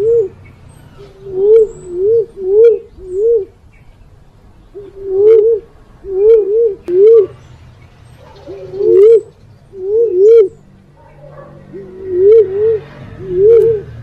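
Fruit dove (punai walik) cooing: short low notes that each rise and fall, given in quick runs of two to four and repeated over and over, as a lure call.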